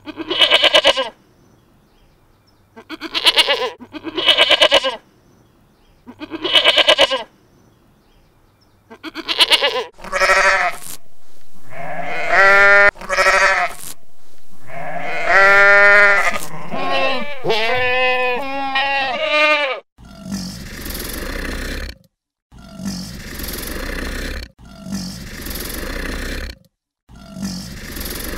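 Goat and sheep bleating: four short calls, then from about 10 seconds in longer, wavering bleats. About 20 seconds in this gives way to the rushing noise of flowing water, broken up by brief silences.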